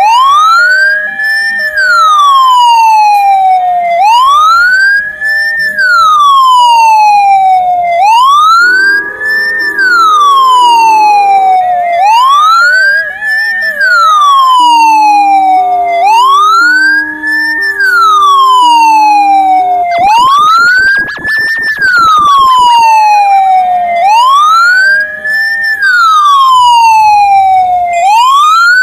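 Ambulance siren sounding a wail: the tone rises quickly, then falls slowly, repeating about every four seconds. Fainter steady and alternating tones sound beneath it at times, with a brief fast flutter about two-thirds of the way through.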